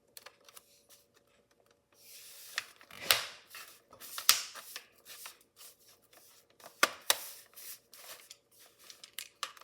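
Handling noise from working on an open laptop: a scatter of small clicks and taps with short rustles, and a few sharper clicks about three, four and seven seconds in.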